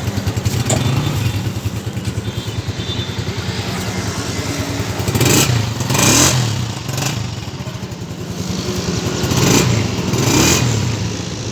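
Honda CG125's single-cylinder four-stroke engine running with a steady exhaust beat. It is given short throttle blips, two about halfway through and two more near the end.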